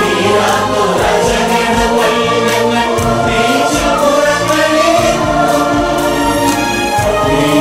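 Large mixed choir of men and women singing a Malayalam Christian devotional song in arranged harmony, with musical accompaniment.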